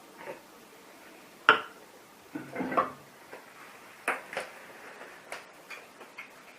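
Scattered knocks and clinks of espresso-making equipment being handled. The loudest is a sharp knock about a second and a half in, followed by a short cluster of clatter and several lighter taps.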